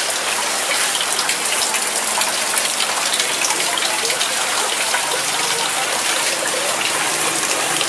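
Food sizzling in hot oil: a steady, dense crackle.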